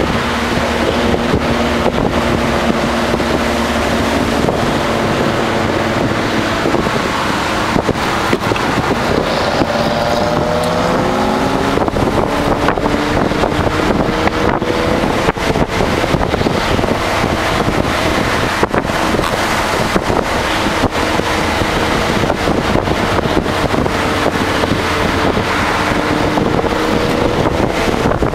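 Nissan Altima SE-R's 3.5-litre V6 engine heard from inside the cabin while driving, with road and wind noise. The engine note drops about seven seconds in, rises as the car accelerates around ten seconds in, and climbs again near the end.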